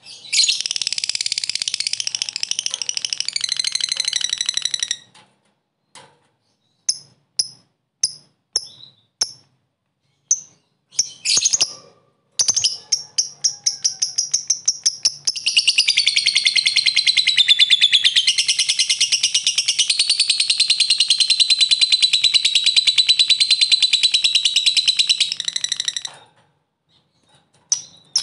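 Lovebird giving its long, rapid cackling trill (ngekek). It trills for about five seconds, breaks into a run of short separate chirps, then goes into one unbroken trill of about fourteen seconds that stops near the end.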